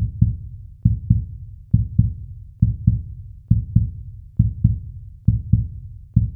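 Heartbeat sound effect: paired low thumps, lub-dub, repeating a little faster than once a second.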